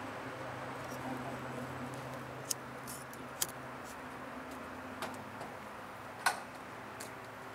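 Disposable lighter being flicked to light fire starters buried in lump charcoal: about four sharp clicks at irregular intervals over a faint steady hum.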